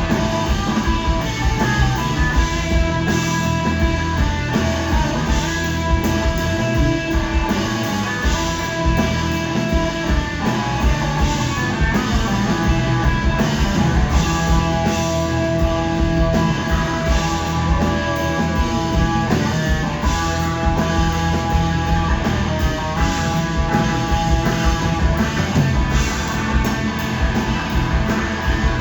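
Blues-rock band playing an instrumental passage without vocals, with electric guitar to the fore over drums.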